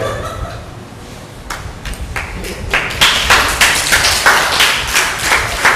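Scattered hand claps from the audience, starting about a second and a half in and growing into a short, uneven round of applause.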